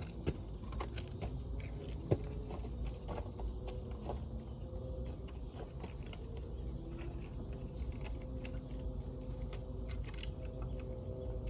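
Scattered light clicks and handling noises over a low steady rumble, with a faint steady hum coming in about four seconds in.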